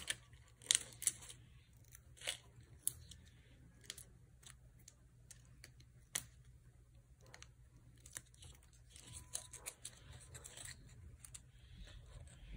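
Paper-craft handling: foam adhesive dimensionals peeled from their backing sheet and a cardstock poinsettia layer handled and pressed into place, giving faint, irregular small clicks and papery rustles.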